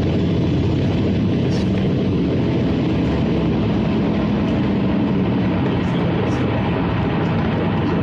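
Steady road and engine noise of a vehicle driving at speed, heard from inside the cab.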